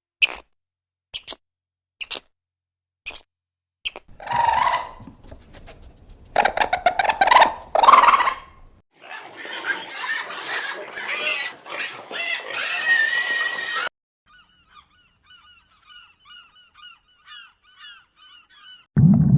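Waterfowl calling: a few short sharp calls about once a second, then loud honking calls running into a dense, noisy flock chorus. For the last few seconds only faint, quick chirps remain.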